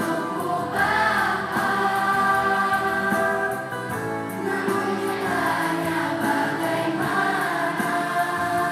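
A choir of schoolchildren singing a song together, holding long notes.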